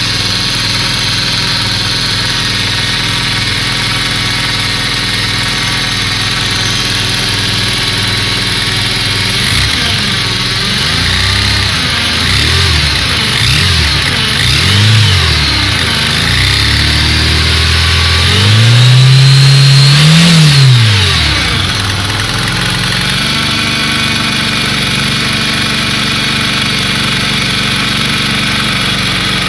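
Cold engine idling with a rocker-arm knock. About ten seconds in it is blipped several times, then held up in a longer rev for a couple of seconds before dropping back to a steady idle.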